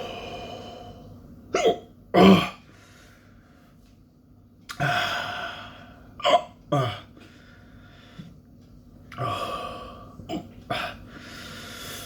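A man hiccuping, about six short, sharp hiccups in pairs, the loudest about two seconds in, with two longer breathy exhales between them. The hiccups are brought on by the burn of a superhot chili pepper he has just eaten.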